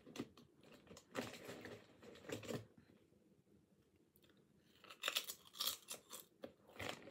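A person chewing crisp Lay's potato chips close to the microphone, with crunching for the first couple of seconds. After a short quiet pause, a new bite starts at about five seconds, with a cluster of sharper crunches.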